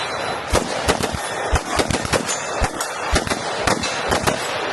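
Rapid gunfire from an AR-15 rifle and Glock pistols: sharp shots at about four to five a second, irregularly spaced and of uneven loudness, with echo filling the gaps between them.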